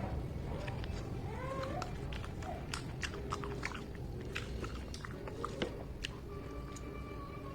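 A person eating at close range: chewing and biting, with a string of short wet mouth clicks and crunches.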